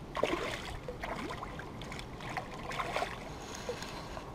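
Light splashing and sloshing of water as a small hooked fish is drawn along the surface on the line, with a few short irregular splashes.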